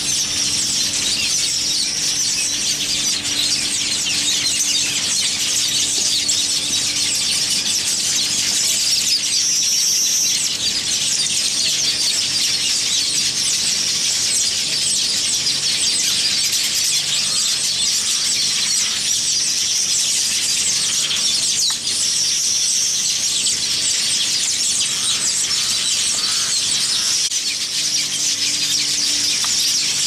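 A colony of village weavers chattering and buzzing all at once, a continuous dense din of many birds, with high drawn-out notes standing out every few seconds.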